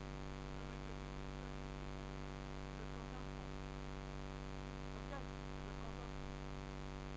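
Steady electrical hum, a low buzz with many even overtones that holds unchanged, with no other clear sound over it.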